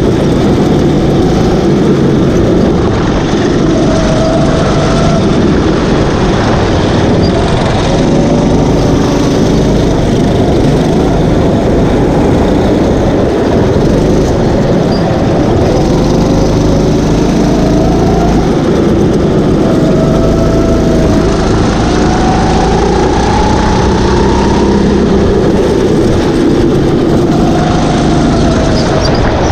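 Sodi rental kart engine running at race pace, its pitch rising and falling over and over as it speeds up on the straights and slows for the corners, over a loud rushing noise.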